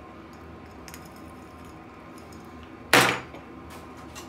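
Quiet handling of the IKEA Raskog cart's metal parts, then one loud, sharp metallic clank about three seconds in as parts knock together in the cart's steel basket.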